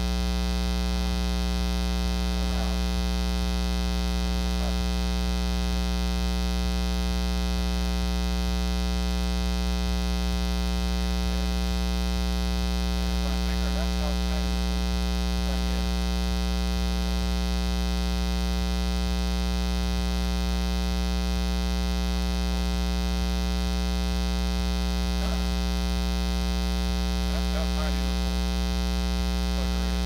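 Steady, loud 60 Hz mains hum with a stack of higher harmonics: ground-loop noise induced into the camera's audio by running the camera from its AC adapter while recording.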